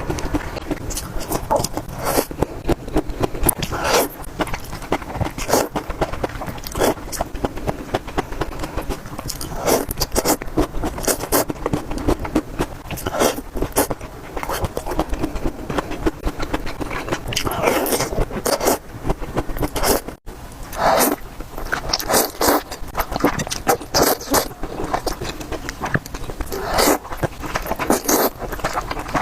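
Close-miked eating sounds: chewing and biting spicy noodles and dumplings, a dense run of wet clicks and smacks, broken by a brief gap about two-thirds of the way through.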